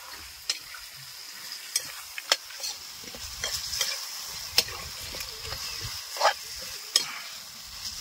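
Chicken pieces frying in a kadai with a steady sizzle while a metal spoon stirs and scrapes them, clicking sharply against the pan every second or so.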